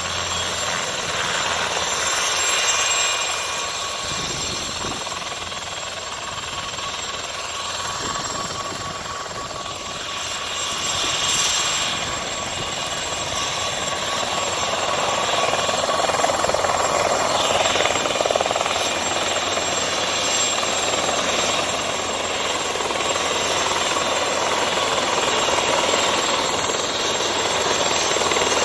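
Mosquito XET single-seat helicopter hovering low: its turbine engine runs with a steady whine over the noise of the rotor, growing louder through the second half as it comes closer.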